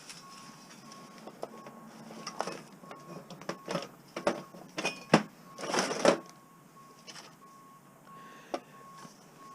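Metal scrap being handled and set down, with scattered sharp clicks and knocks and a rustle about six seconds in. A faint high beeping tone sounds on and off in short dashes.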